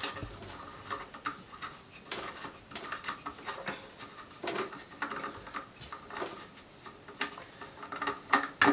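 Scattered light clicks and scrapes of plastic parts as the toilet fill valve's lock nut under the tank is unscrewed by hand, a little louder near the end.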